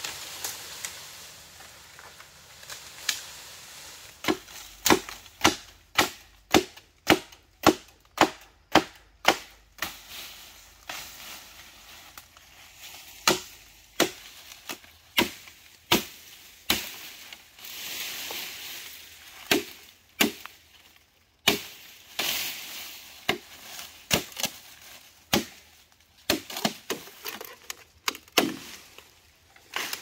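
Machete chopping into the base of a bamboo culm, a series of sharp blows. They come in a quick regular run of about two a second, then slow to spaced, irregular strokes.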